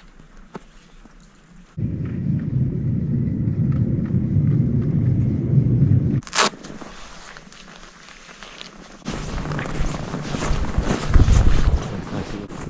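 Wind buffeting a handheld camera's microphone in two long gusts, with crunching steps on packed snow in the second gust. A single short high squeak sounds between the two gusts.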